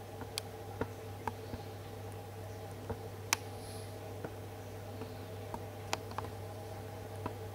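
Camcorder's own steady electrical hum with a few faint steady tones, broken by about a dozen irregular sharp clicks, the loudest a little over three seconds in.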